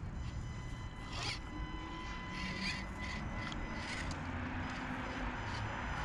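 Axial SCX24 Deadbolt micro crawler creeping over rocks: a thin steady whine from its small electric motor and gearing, with short scraping bursts of tyres and chassis on stone.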